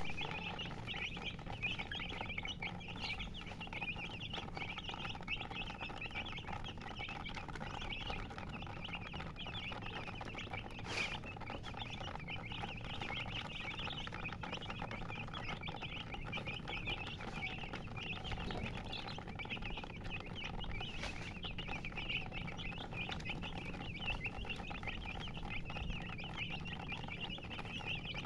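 Chickens chirping: a steady, unbroken chorus of many overlapping high-pitched peeps.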